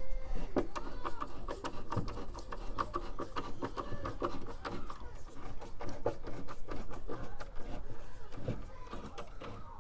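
Irregular clicks and knocks of metal parts being handled as the van's side step is bolted back in place, with effortful breathing and muttering.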